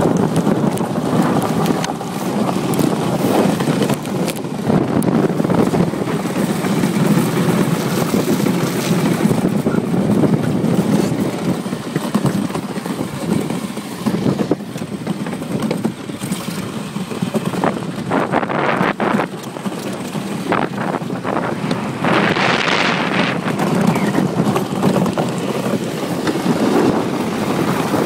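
Steel runners of a DN iceboat rumbling across the ice, mixed with wind rushing over the microphone. Two brief louder hissing surges come about 18 and 22 seconds in.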